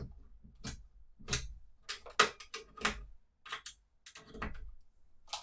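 A dozen or so irregular clicks and light knocks of RCA cable plugs and audio gear being handled while the mixer's output is connected.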